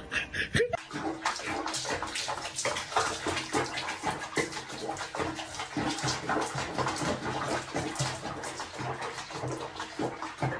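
Water splashing in quick, irregular splashes.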